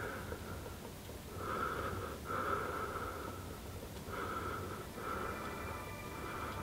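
A man breathing out heavily through his mouth: about five long, huffing breaths of roughly a second each, with short pauses between them.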